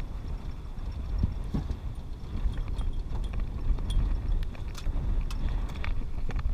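Irregular knocks and taps of a wet rope and float against an aluminium dinghy's side as a crab pot line is hauled in hand over hand, over a low rumble of wind on the microphone.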